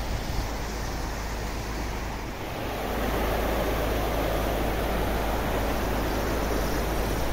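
Floodwater rushing across a road: a steady rushing noise that grows louder about three seconds in.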